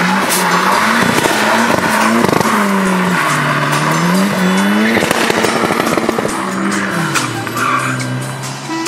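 Turbocharged 2.3-litre Mercedes M111 four-cylinder revving up and down repeatedly while the car drifts, over a steady squeal of spinning tyres. The revs fall away and settle lower near the end.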